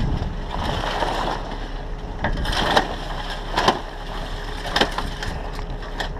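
Mainsail being dropped on a small sloop: sail cloth rustling, with several sharp clicks and knocks from the rig as it comes down, over a steady low rumble.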